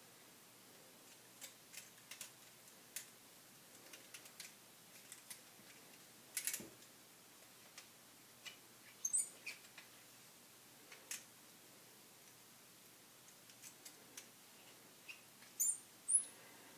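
Scattered small clicks and ticks of a Schick Krona double-edge safety razor being taken apart and loaded with a new blade, with a few faint high metallic chirps among them.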